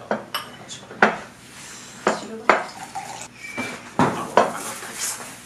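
Ceramic plates, bowls and a glass being set down on a wooden table: a string of clinks and knocks, with a short ring from one of them about halfway through.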